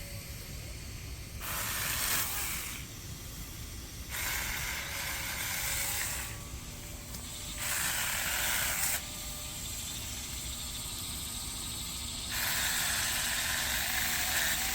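Cordless mini electric chainsaw with a 4-inch bar cutting through a wooden branch in four bursts, each lasting one to two and a half seconds, with quieter pauses between them.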